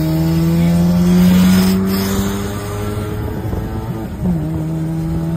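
Car engine heard from inside the cabin while driving, pulling steadily with the revs climbing slowly, then dropping in a step about four seconds in.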